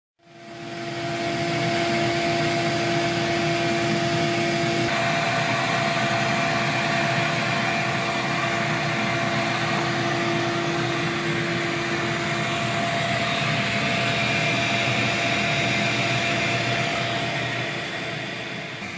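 Steady machine noise, a motor running with a steady hum over a hiss, fading in at the start and fading out near the end.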